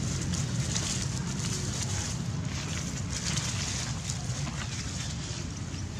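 Wind rumbling on the microphone, with crackling rustles of dry leaf litter as monkeys move over it.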